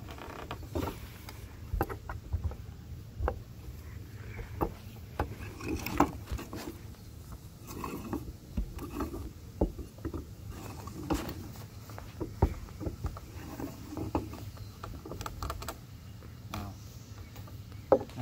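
A steel pry bar levering a wooden railing board up onto hog-wire fencing: irregular knocks and clicks of metal against wood and wire throughout.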